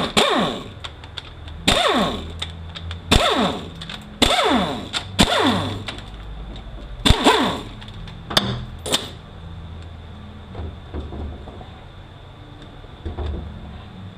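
Hand work on a transmission case: a series of sharp metal-on-metal knocks, roughly one a second, each followed by a short ringing that falls in pitch; after about nine seconds they give way to fainter, scattered knocks.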